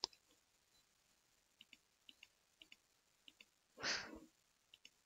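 Faint computer mouse clicks, mostly in quick press-and-release pairs about every half second to second, with one sharper click at the start. A brief soft breath-like noise comes about four seconds in.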